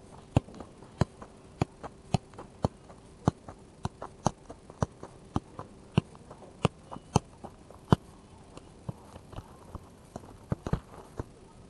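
Football being juggled: the ball thuds on the foot and leg again and again, about two touches a second, kept up off the ground.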